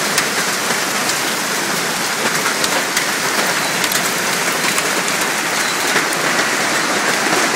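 Hailstorm pelting down: a dense, steady downpour of hail and rain, with many sharp ticks of hailstones striking hard surfaces.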